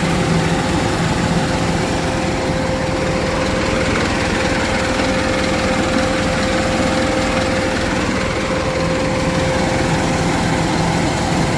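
A truck's idling engine with the air conditioning system running and the condenser's electric extra fan on: a steady low rumble with a constant hum held over it.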